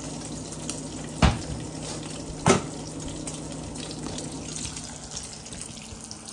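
Bacon sizzling steadily in a frying pan on an electric stove, with two sharp knocks, one about a second in and another about a second later.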